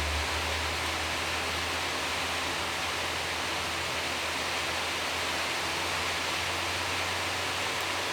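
Steady, even hiss with a low hum underneath, unchanging throughout, with no distinct clicks or knocks.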